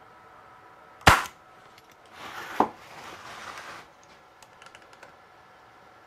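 Pneumatic stapler firing once about a second in, a single sharp crack as it drives a staple into the wooden frame. Softer handling noise follows, with one click and a few light ticks.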